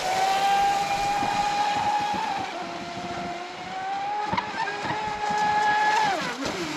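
Traxxas Spartan RC boat's 1600kv 4082 brushless motor whining at full throttle, its pitch holding steady with small rises and dips as the boat runs and turns. About six seconds in the whine drops sharply in pitch as the throttle comes off.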